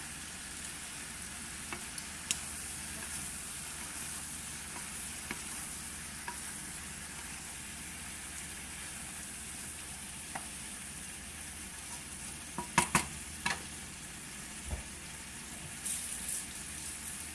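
Shell-on shrimp sizzling steadily in butter in a frying pan. A few sharp clicks and knocks stand out, the loudest a quick run of them about two-thirds of the way through.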